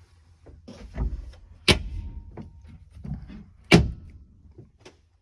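Campervan upper cabinet doors being opened and pushed shut by hand: a few knocks and rattles, and two sharp snaps of the Southco locking latches about two seconds apart.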